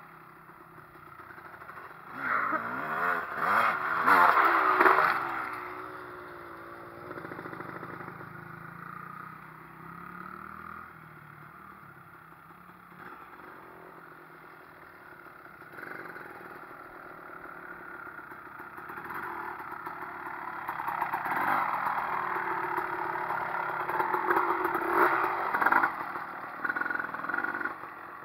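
Honda dirt bike engines revving as the bikes ride past, the pitch rising and falling with the throttle. The engines are loudest twice, just after the start and again later on, and fade to a quieter running in between.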